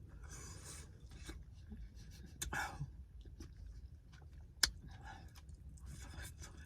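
A person eating with a fork: quiet breathing and mouth sounds, with a few sharp clicks of the fork, the loudest about two-thirds of the way through, over a low rumble of wind on the microphone.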